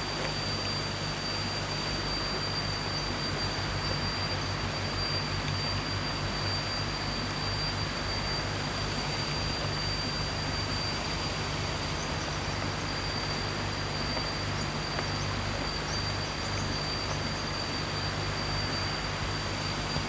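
Steady rush of water spilling over the steps of a small weir, with a thin high-pitched whine held steadily above it.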